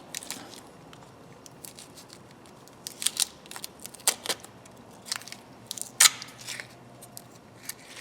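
Masking tape being peeled and crumpled off a pair of freshly painted end cutters: irregular crackling with scattered sharp clicks from the metal tool being handled, the loudest click about six seconds in.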